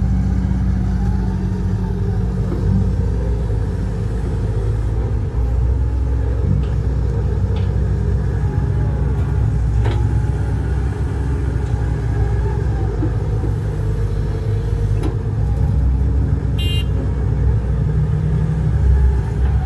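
Heavy diesel engines of a Komatsu HB205-1 hybrid excavator and a dump truck running steadily as the excavator loads soil into the truck, with a short sharp sound near the end.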